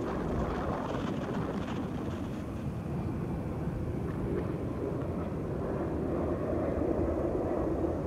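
Distant airliner engine noise mixed with low wind rumble on the microphone, steady throughout, with a faint steady engine hum coming up in the second half.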